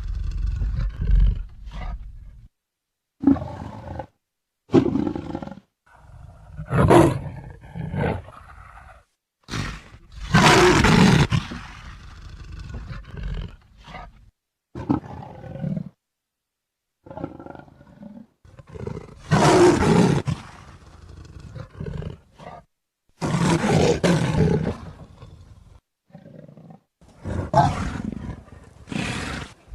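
Leopard roaring: a run of separate calls, each a second or two long, with short silent gaps between them, the loudest coming every few seconds.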